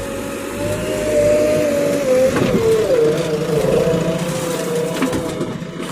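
JCB 3DX backhoe loader's diesel engine running under load, its pitch wavering up and down as the machine works.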